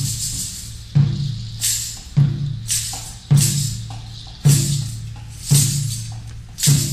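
Live hand drumming on a large barrel drum in a slow, even beat: a deep stroke about once a second, alternating with a sharper, brighter stroke. A high jingling shimmer fades out during the first second.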